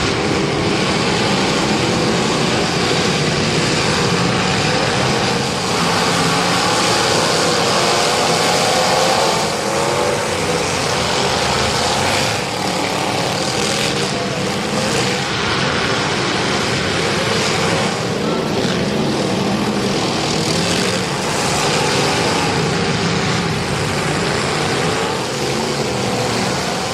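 Race car engines running loudly and continuously, their pitch wavering up and down.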